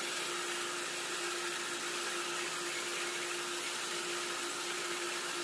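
Cylinder-boring machine running steadily: a constant motor hum over an even hiss, with no change in pitch or level.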